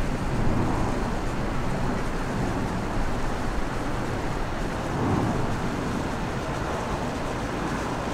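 Steady, low jet-engine rumble of a Boeing 737 airliner flying over on approach to land, swelling slightly about five seconds in.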